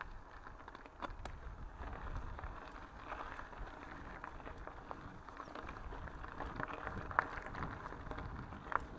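Mountain bike rolling along a gravel path: tyre noise on the loose grit with many small scattered clicks and rattles, over a low wind rumble on the microphone.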